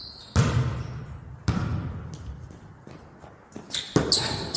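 Basketballs bouncing on a hardwood gym floor: two single bounces about a third of a second and a second and a half in, then a quicker run of bounces near the end, each echoing in the large hall.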